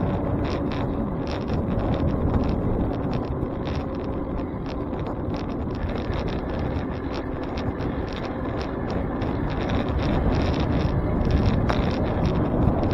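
Wind buffeting the microphone and road noise from a bicycle riding along a city street, with a fast, irregular rattle of clicks throughout.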